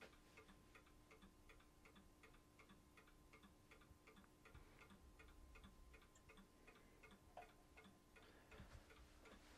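Near silence with faint, regular ticking, about three ticks a second, over a faint steady hum.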